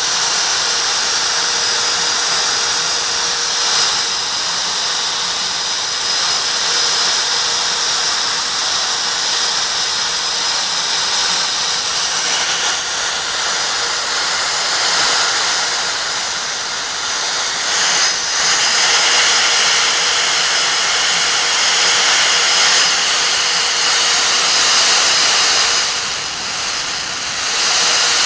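CNC router spindle running at high speed while milling, a steady loud hiss with a constant high whine, its texture shifting slightly as the cutter works.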